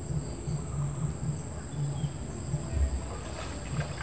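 Insects chirring in one steady high-pitched tone, with a low irregular pulsing rumble underneath.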